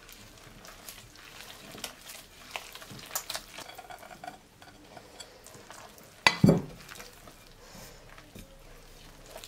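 Hands mixing flour and water into a shaggy bread dough in a glass bowl: soft, crackly squishing and rustling of the dough with small scattered ticks, and one louder thump a little past six seconds in.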